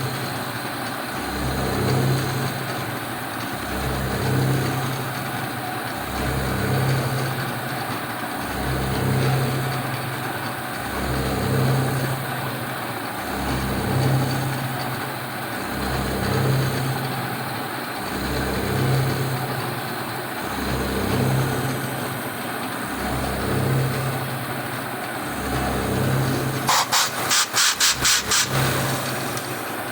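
1980 Shizuoka AN-S CNC milling machine milling a slot in 1018 carbon steel; the sound swells and fades in a steady cycle about every two and a half seconds. Near the end there is a quick run of about eight sharp pulses.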